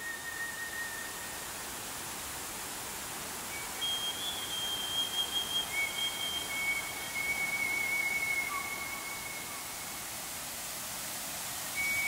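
River rapids rushing as a steady hiss of white water. Over it, long high whistle-like tones are held one at a time from about four seconds in, each lasting a second or more, with one lower note near the end.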